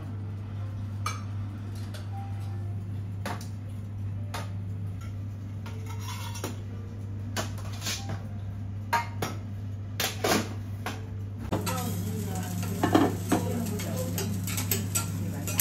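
Metal utensils clinking and scraping against plates and the teppan hot plate, as short sharp clicks that come thicker and louder over the last few seconds, over a steady low hum.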